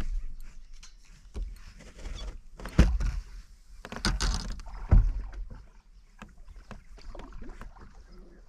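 Water splashing and knocks against a bass boat's hull and deck as an angler leans over the side to land a hooked bass by hand. Two loud thumps about three and five seconds in, with a burst of splashing between them.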